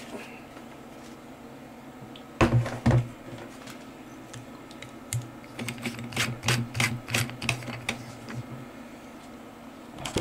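Hands handling a strip of organza ribbon: a couple of sharp clicks about two and a half seconds in, then a few seconds of quick crinkly clicks as the ribbon's threads are tugged to test whether it unravels.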